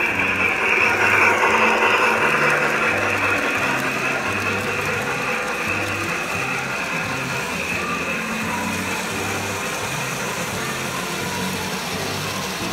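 Large-scale garden model train running along its track: a steady mechanical whir and clatter of its motors and wheels, loudest about a second or two in as it passes close, over background music with a pulsing bass line.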